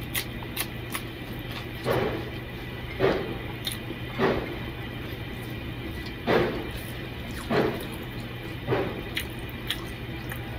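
Close-miked eating sounds: about six short wet smacks and squelches of chewing and fingers working rice and curry, at irregular intervals of one to two seconds. A ceiling fan hums steadily underneath.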